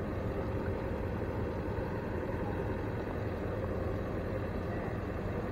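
Steady low hum of an idling vehicle engine, even throughout with no sudden sounds.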